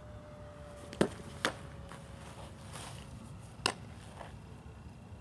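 A softball striking leather gloves: three sharp pops, the loudest about a second in, a second one half a second later, and a third near the end.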